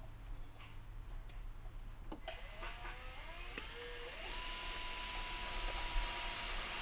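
A motor spinning up: a whine rises in steps for about two seconds, then holds at one steady pitch with a rushing hiss, over a low steady hum.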